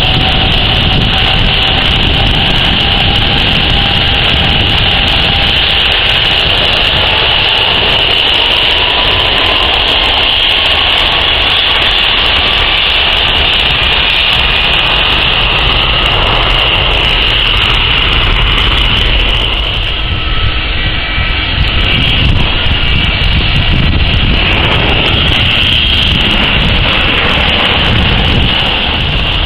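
Airbus A330 airliner's jet engines running with a steady high whine over a low rumble. A fainter tone rises slowly during the first dozen seconds as the engines spool up.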